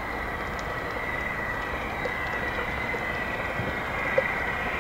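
Garden-railway model locomotive running toward the bridge, still out of sight: a steady rushing rumble with a thin whine that grows slightly louder as it approaches. A single sharp click comes about four seconds in.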